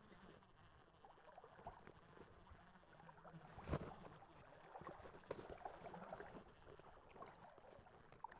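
Near silence: faint outdoor background with scattered small clicks and one soft knock a little before halfway through.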